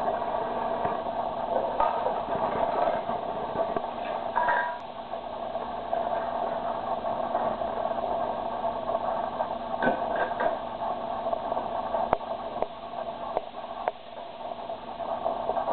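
Stainless steel mixing bowls and a small metal cup clinking and ringing briefly as they are knocked together and set down, several times, over a steady background hiss.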